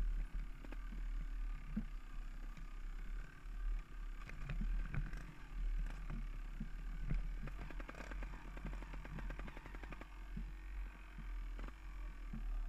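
Motorcycle rolling slowly down a stony dirt trail with its engine barely heard. Tyres and chassis give scattered knocks and rattles over stones and ruts, over a steady low rumble.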